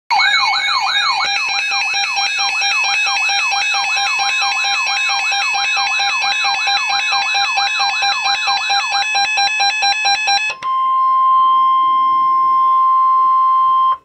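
Reecom weather alert radio sounding its warning alarm: a warbling siren of quick rising sweeps, about three a second, under a fast beeping pattern. About ten and a half seconds in it changes to a single steady tone near 1 kHz, which cuts off suddenly at the end. The alarm signals a severe thunderstorm warning received over NOAA Weather Radio.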